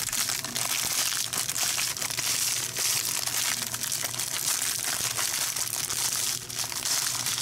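A sleeve of Ritz crackers being crushed by hand inside its wrapper: continuous crinkling of the wrapper mixed with the crunching of crackers breaking up.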